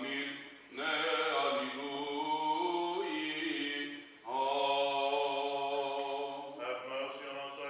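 A man's voice chanting Greek Orthodox funeral chant in long, held phrases that slide between notes, pausing briefly for breath about a second in and again about four seconds in.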